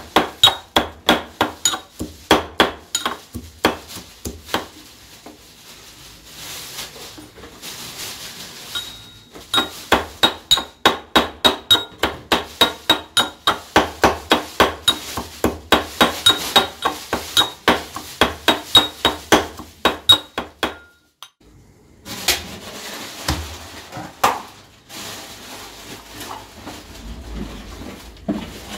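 Brass mortar and pestle pounding garlic cloves: steady metallic strikes, about two to three a second, each with a slight ringing tone. The pounding pauses a few seconds in, resumes, and stops about 21 seconds in. Softer, irregular knocks and scrapes follow near the end.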